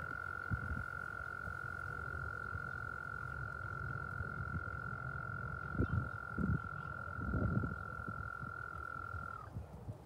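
A frog calling in one long, steady, high trill that stops near the end with a slight drop in pitch. A few low thumps come in the middle of it.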